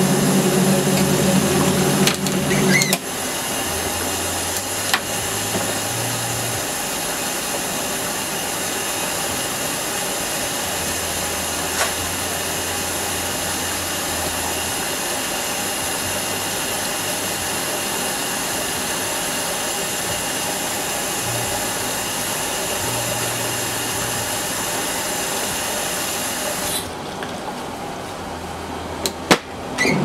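Kuppet twin-tub portable washer's wash tub agitating a full load of bedding in soapy water: a steady motor hum with churning, sloshing water, the hum louder for the first few seconds. Near the end the sound turns duller and a few sharp clicks follow.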